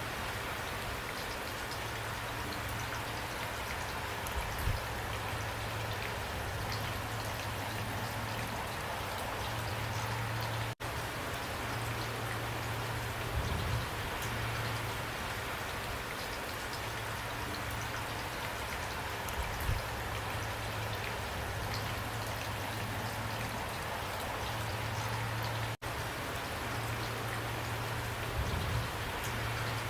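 Steady rain falling: a dense hiss with scattered individual drops ticking and a few soft low thumps. The sound cuts out for an instant twice.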